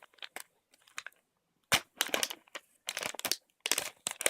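Plastic snack packaging crinkling and crackling as it is handled and opened: a few faint clicks, then from about a second and a half in a run of sharp, irregular crackles.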